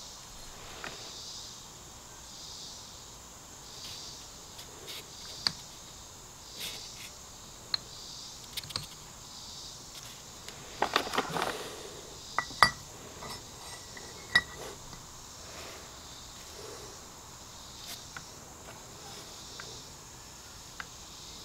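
Hands fitting a piston, steel wrist pin and connecting rod together: scattered light metal clicks and clinks, a couple of them ringing briefly, with a short louder rustling burst about eleven seconds in. A faint steady high hiss runs underneath.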